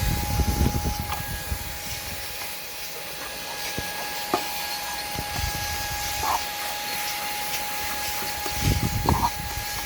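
Shark IZ251UKT cordless vacuum running with a steady whine and rushing air as it is worked over a car dashboard. Low knocks and rubbing from handling the nozzle come in the first second and again near the end.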